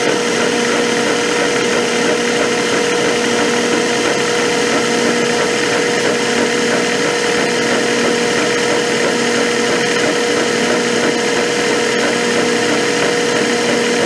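Milling machine taking a steady roughing cut along a cast iron straight edge casting with a 1¾-inch roughing (corn cob) end mill. The cut runs evenly, with a constant hum over the grinding of the cutter.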